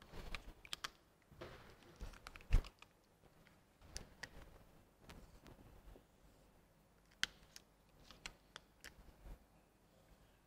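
Faint scattered clicks and taps of a whiteboard marker being handled and drawn on a whiteboard, with one louder knock about two and a half seconds in.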